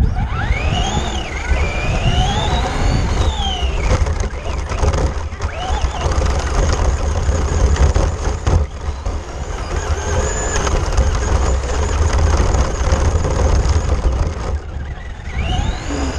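Traxxas RC car's motor whining up and down in pitch as it speeds up and slows, several times, over a constant heavy low rumble of the car vibrating as it runs.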